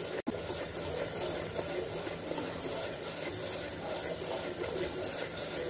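Spiced onion-tomato masala frying in a pressure cooker while being stirred with a wooden spatula: a steady, even sizzle.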